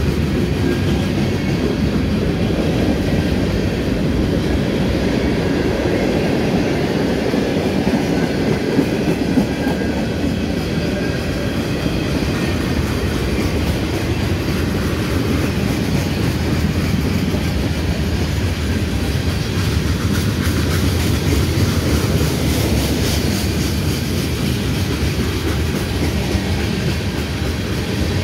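Freight cars of a slow-moving CSX train rolling past close by: a steady rumble and clatter of steel wheels on the rails.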